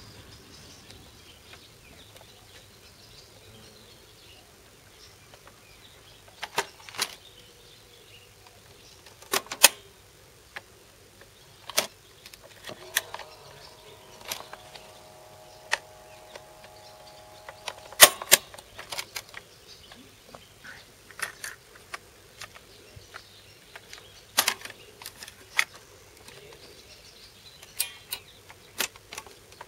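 Sharp mechanical clicks and clunks from a BRG MK 27 portable cassette recorder as its cassette door and controls are worked, about a dozen at irregular intervals. Midway, a steady hum of several tones sounds for about five seconds.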